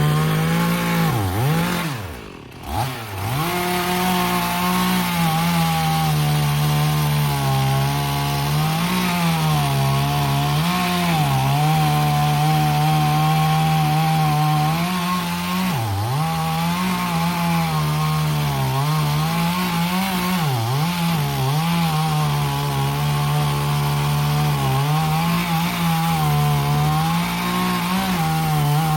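Two-stroke chainsaw running at high throttle and cutting wood. Its engine note sags repeatedly as the chain bogs down in the cut, then picks back up. The engine falls away briefly about two seconds in before revving up again.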